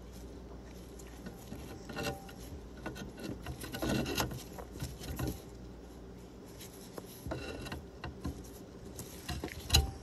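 Gloved hands fitting a dishwasher's plastic pressure sensor back onto its mount and moving its wiring: rubbing and scraping with scattered small clicks and knocks.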